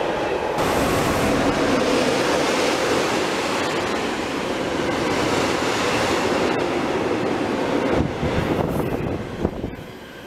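Freight train of tank wagons rolling past at close range: a steady, loud rumble of wheels on the rails. The noise drops and turns uneven about eight seconds in.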